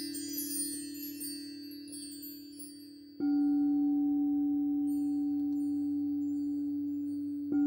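High metal chime tones fade out over the first couple of seconds while a crystal singing bowl hums a low, steady note. About three seconds in, a frosted quartz crystal singing bowl is struck and rings a strong, steady low tone with fainter higher overtones. It is struck again just before the end.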